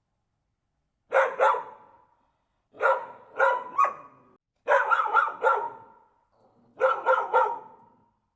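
Dog barking in four bursts of two to four quick barks each, the first starting about a second in, the bursts roughly two seconds apart.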